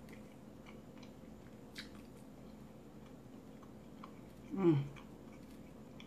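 A person chewing a mouthful of food, quiet with a few faint mouth clicks, and a short hummed "mm" about four and a half seconds in.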